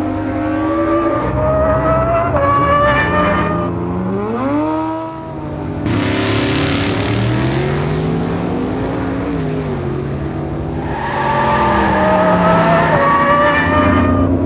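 Race-car engine sound effects: several engines revving, their pitch rising and falling as the cars race. A rushing noise comes in about six seconds in, and the engines climb in pitch and grow louder over the last few seconds.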